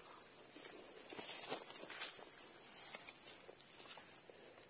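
A steady, high-pitched drone of forest insects, with soft rustling and scraping as a knife digs into soil and dry leaf litter.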